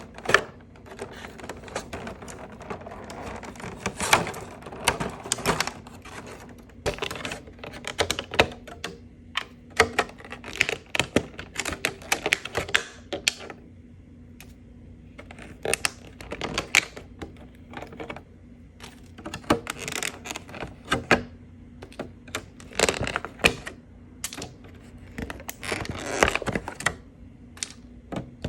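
Small plastic toy pieces being handled and set down: irregular clusters of sharp clicks and taps, with brief pauses, over a low steady hum.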